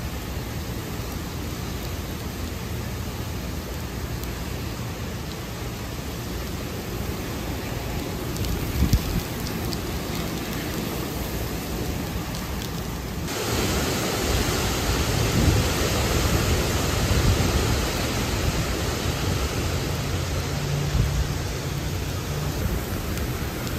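Hurricane wind and heavy rain: a steady, dense downpour with wind gusts rumbling on the microphone. About halfway through, the rain hiss suddenly gets louder and the gusts strengthen for several seconds.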